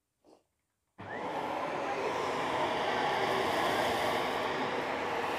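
Dyson vacuum cleaner switched on about a second in, its motor spinning up over half a second, then running steadily with air rushing through the hose and wand nozzle.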